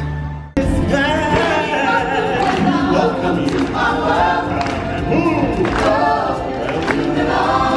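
A choir of many voices singing together in a live stage show. It begins with a sudden cut from background music about half a second in.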